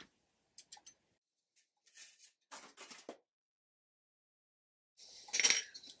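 Faint taps and short scrapes of a pencil and paper being handled on a cutting mat. About five seconds in comes a louder clatter and rustle as the pencil and tools are set down.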